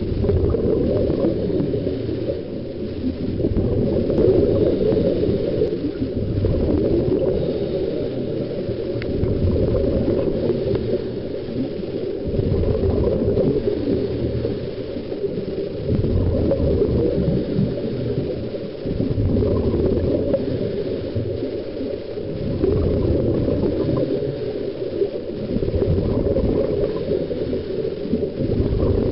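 Scuba regulators venting exhaled bubbles, heard underwater as a muffled, rumbling gurgle that swells in surges every few seconds with each breath.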